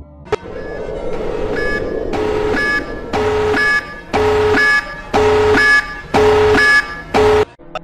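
Emergency alert alarm: a hiss of static builds, then a pulsed alarm tone beeps about six times, roughly once a second, over the static.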